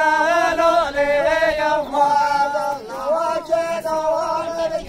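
Men's voices singing a govend dance song without instruments: long held notes with wavering, ornamented turns, broken by short pauses for breath.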